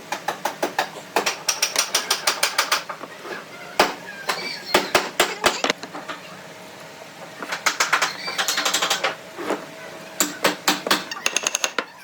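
Quick runs of sharp taps or knocks, several a second, coming in a few separate bursts.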